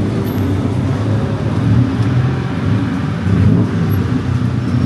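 Motor traffic on a city street: a steady low engine rumble that rises and falls a little.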